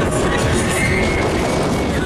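Loud fairground music playing, heard from a seat on a swinging pirate-ship ride.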